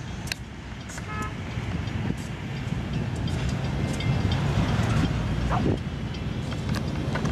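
Loaded coal train hauled by Union Pacific GE AC4400CW and EMD SD70ACe diesel locomotives rolling past: a steady low rumble of engines and wheels on rail, with scattered clicks. A brief high toot comes about a second in, and a short squeal about two-thirds of the way through.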